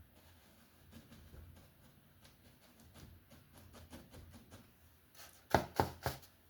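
Paintbrush work with acrylic paint: faint dabbing and scraping, then three sharp taps close together near the end.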